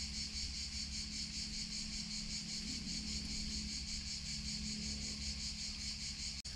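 A steady chorus of insects chirring high and shrill, with a fast, even pulsing beat; the sound briefly cuts out near the end.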